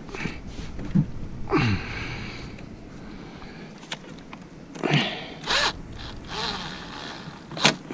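Rubber coupler and plastic intake tube rubbing and scraping as they are worked together by hand, in a handful of short scrapes. One squeak falls in pitch, and a sharp knock comes near the end.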